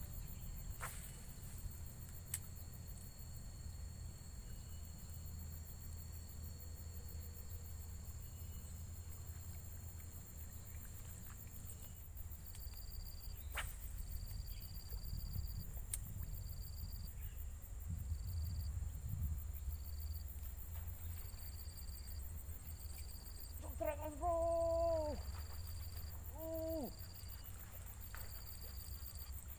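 Outdoor country ambience with a low steady rumble and a thin, high insect-like tone. The tone is steady at first, then turns into a rhythmic on-off chirping about halfway through. A few sharp clicks stand out, and two short pitched calls come near the end.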